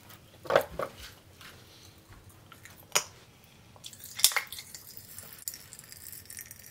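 Mouth sounds of a child eating Pop Rocks popping candy: four or so sharp, wet pops and smacks, the loudest about half a second in and just after four seconds.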